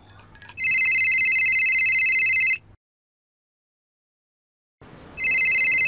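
Telephone ringing: an electronic trilling ring, two rings of about two seconds each with a silent pause between, after a few faint clicks.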